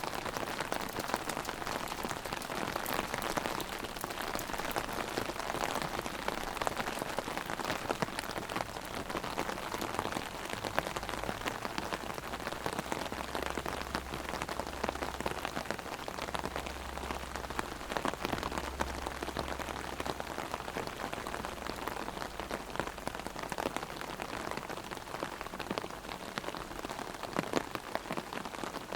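Heavy rain hitting an umbrella held overhead: a dense steady patter with many sharp individual drop strikes. A faint low rumble runs underneath for several seconds in the middle.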